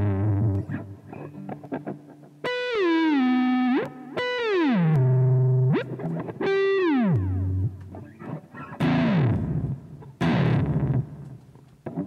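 Distorted electric guitar (a Silvertone SG copy) through a Zoom G1xOn whose expression pedal is set to pitch-shift, playing a string of dive bombs: about five struck notes, each holding briefly and then gliding down in pitch, one every second and a half to two seconds. The later ones sound rougher. This imitates a tremolo-bar dive bomb on a guitar with no tremolo.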